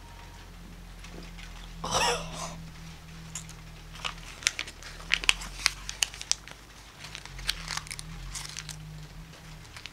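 Biting and chewing a sheet of printed paper: a run of sharp crackles and crinkles as the paper is torn and crushed in the mouth, after a short loud rush of noise about two seconds in.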